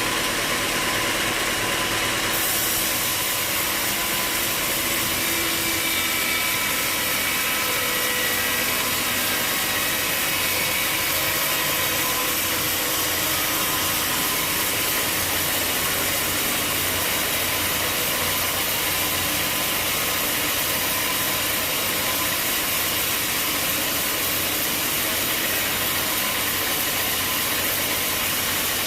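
Sawmill machinery running steadily, an even mechanical noise with no breaks.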